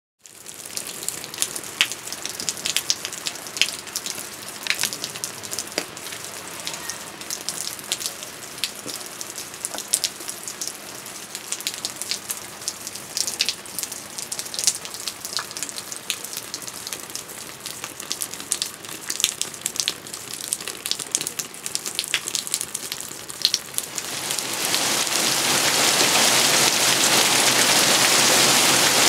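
Light rain with scattered single drops tapping, the kind dripping off a roof's eaves. Near the end it suddenly thickens into a loud, dense, steady downpour.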